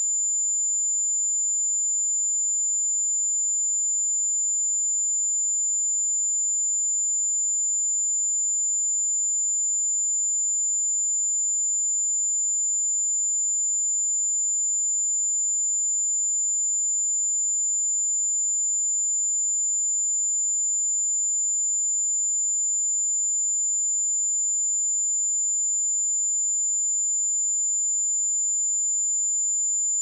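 A steady, high-pitched pure sine-wave test tone at 7096 Hz, one unchanging pitch held without a break.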